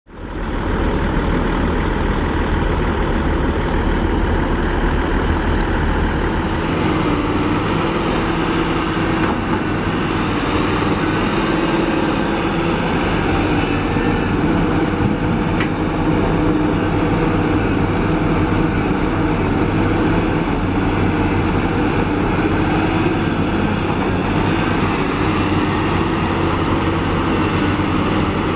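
Kobelco SK350 excavator's diesel engine running steadily under working load, its pitch shifting a little as the machine digs and swings.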